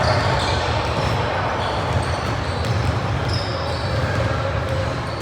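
Basketball game play on a gym court: a ball bouncing on the floor, with short high squeaks and voices in the room.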